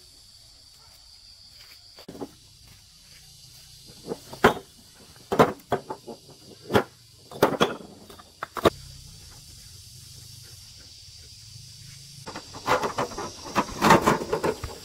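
Irregular sharp knocks and clatters, single strikes at first and then a dense run of clattering near the end, over a steady high-pitched insect drone.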